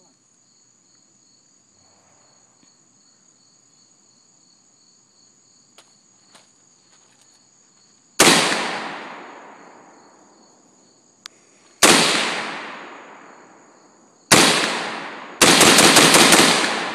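AR-15-style rifle firing: after about eight seconds of quiet, three single shots a few seconds apart, each with a long echoing decay, then a rapid string of shots near the end. Insects shrill steadily throughout.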